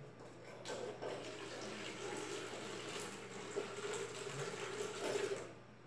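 Water running and splashing, starting about half a second in and stopping shortly before the end.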